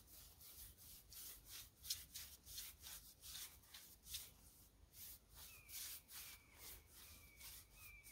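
Bristle paintbrush scrubbing stain onto a rough log post: a run of short brushing swishes, about two a second. From about five and a half seconds in, a faint high chirp repeats about every half second.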